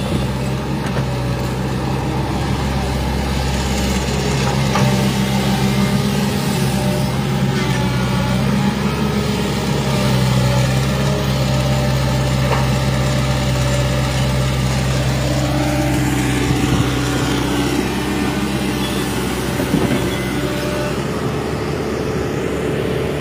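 Hitachi hydraulic excavator's diesel engine running steadily while the machine works, with a rising whine about two-thirds of the way in.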